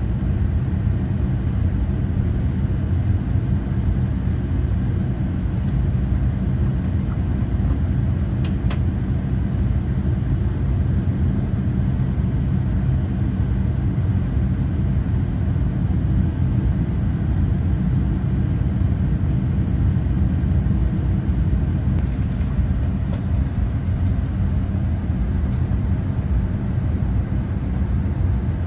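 Boeing 787-9 cabin noise during taxi: a steady low rumble of the engines and air-conditioning, heard from inside the cabin.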